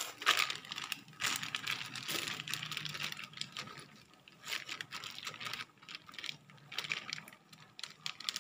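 A spoon clicking and scraping against a wok as meat and sauce are stirred together, in quick irregular taps. A plastic bag crinkles briefly near the start.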